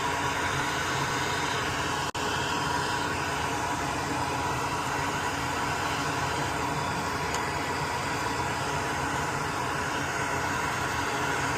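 Steady fan-like whirring hiss with a faint hum, unchanging throughout, broken by a brief dropout about two seconds in.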